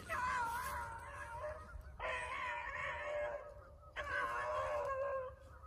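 Beagle hounds baying on a rabbit's scent trail: three long, wavering bawls, one after another, each lasting a second and a half to two seconds.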